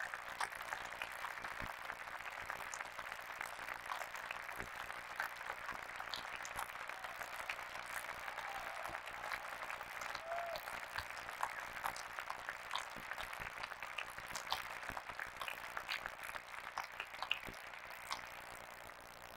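Audience applauding steadily, many hands clapping, dying away near the end.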